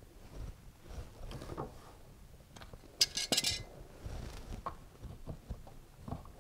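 Small handling noises of pump pliers and a plastic non-return valve as the valve is worked out of a dishwasher drain hose and pushed into the drain pump outlet: light clicks throughout, with one sharp click and a brief clatter about three seconds in.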